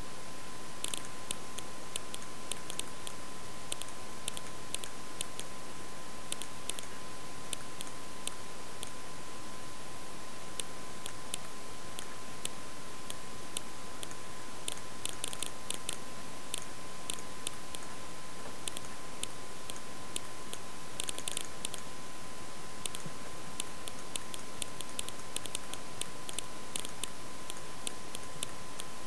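Irregular clicking of a computer mouse, the clicks bunching into quick runs a few times, over a steady hiss and a faint steady high tone.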